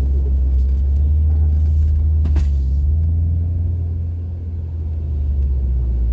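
Honda CR-V running and driving in snow: a steady, loud low rumble from the engine and drivetrain, easing a little partway through. There is one brief click about two and a half seconds in.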